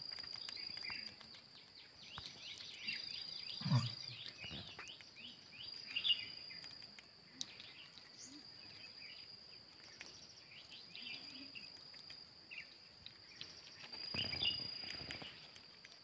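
Forest ambience: a steady high-pitched insect drone, breaking off now and then, with many short bird chirps. A short low thump about four seconds in is the loudest moment, and there is a brief rush of noise near the end.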